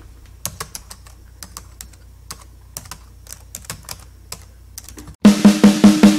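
Computer keyboard typing sound effect: irregular key clicks over a low hum. About five seconds in, a loud music intro cuts in with a steady beat about four times a second.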